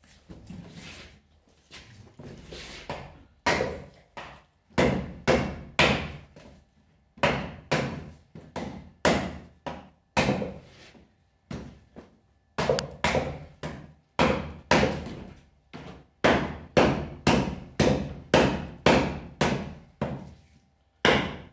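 A medium-sized bushcraft knife chopping into a tree branch laid across a wooden stump: sharp wooden chops about two to three a second, in runs with a few short pauses, after some softer taps in the first few seconds.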